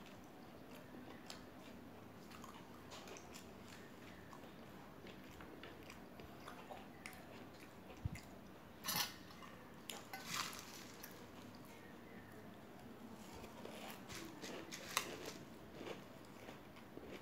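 Close-up eating sounds: chewing and crunching a fried pakoda, with scattered sharp clicks. Near the end a steel spoon scrapes and clinks in a steel bowl of puffed rice (murmura).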